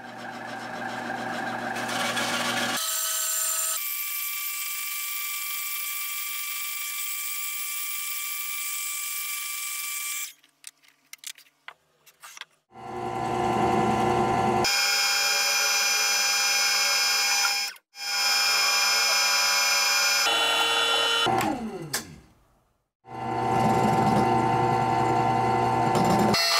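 A band saw runs and cuts through a wooden board for about ten seconds, followed by a few soft clicks. Then a STAX TOOLS 303 benchtop drill press runs in three bursts, drilling and countersinking a wooden block; after the second burst its motor winds down with a falling whine.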